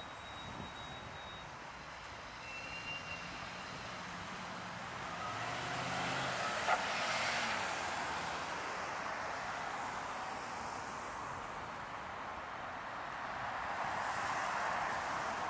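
City street traffic: motor vehicles passing, with a low engine hum in the first half, one vehicle swelling past around the middle and another near the end. A short click sounds about halfway through.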